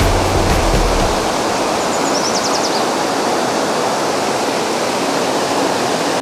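Steady rush of a fast mountain creek running high, whitewater tumbling over rocks.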